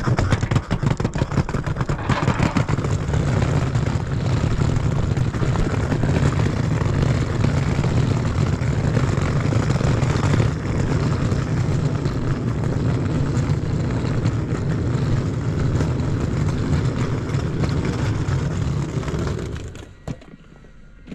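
Steady low rumble of a vehicle's engine with a rushing noise, as it travels under way; it fades out a little before the end.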